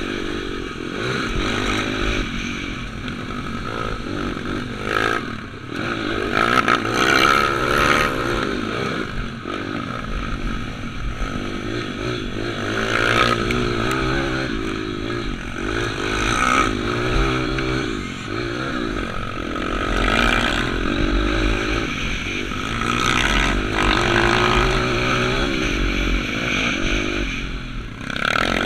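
Z155 pitbike's single-cylinder four-stroke engine being ridden hard off-road, revving up and easing off again and again through the corners and straights.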